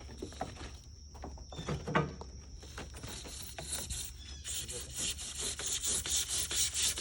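Hand saw cutting through an ICF foam block in quick back-and-forth strokes, starting about four and a half seconds in, after some handling knocks and a thump.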